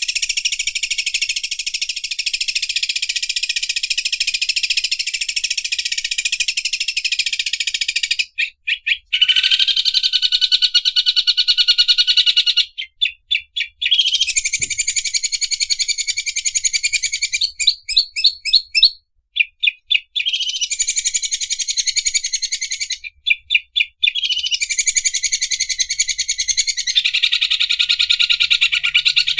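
Green leafbird (cucak ijo) singing in the 'mesin obras' (overlock machine) style: long, very fast, high-pitched buzzing trills like a sewing overlocker. The song comes in phrases several seconds long, about six of them, with short breaks in between.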